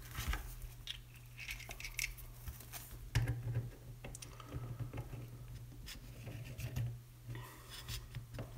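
Faint scrapes and light clicks of a metal hose fitting being screwed by hand into the acrylic cover of a water-cooling block on a stainless-steel plate.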